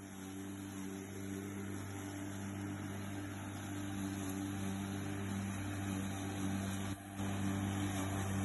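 Corded electric rotary lawn mower running while cutting grass: a steady motor hum that slowly grows louder, dipping briefly about seven seconds in.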